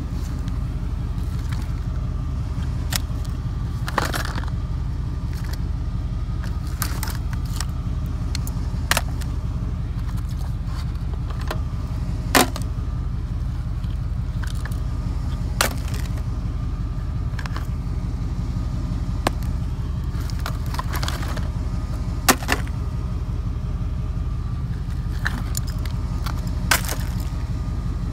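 A steady low engine hum, like a vehicle idling, with about a dozen scattered sharp clicks and clinks.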